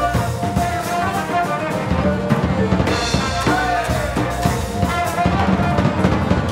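A jazz sextet playing an energetic passage: trumpet, alto saxophone and trombone over vibraphone, double bass and a busy drum kit.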